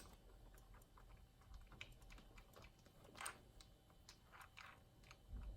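Faint, scattered clicks and taps of small plastic and metal RC truck parts and a screw being handled, with one louder tap about three seconds in.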